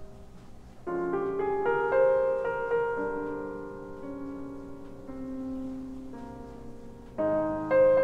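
Soft background piano music: a quick run of rising notes about a second in, then slower held notes, with a new chord struck near the end.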